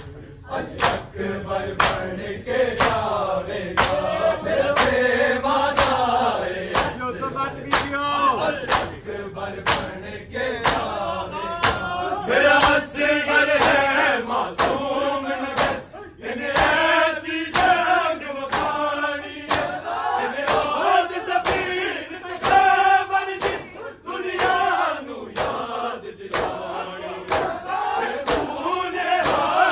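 A group of men chanting a Shia noha lament in unison, punctuated by the steady claps of hands striking bare chests in matam, about three strikes every two seconds.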